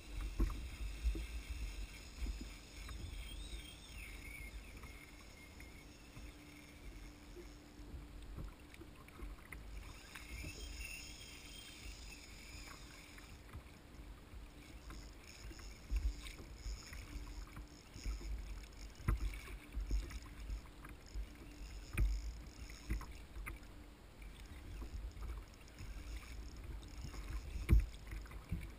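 Water sloshing against a fishing kayak's hull, with wind gusting on the microphone and a few sharp knocks on the kayak, the loudest near the end.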